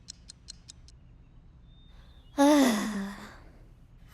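A cartoon character's voice giving one short sigh-like sound that falls in pitch, a little over two seconds in. Before it, during the first second, there is a quick run of faint high ticks, about five a second.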